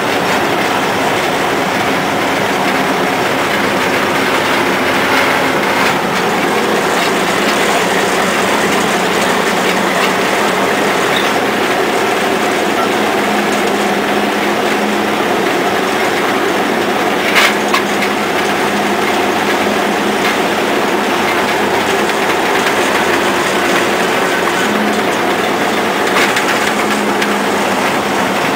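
Cummins diesel engine running steadily inside the cab of a 1930 Moore Speedcrane, with the crane's drums and gear train rattling as they turn. A single sharp clank about 17 seconds in.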